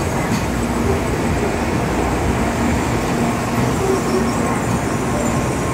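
N700S Shinkansen train starting to pull away from the platform: a steady rumble with a faint steady hum running through it.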